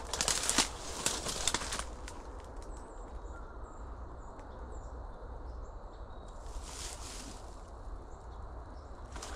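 Dry brush and leaves crackling and rustling close by for the first two seconds as someone moves through the undergrowth, then quieter, with faint small-bird chirps and another brief rustle about seven seconds in.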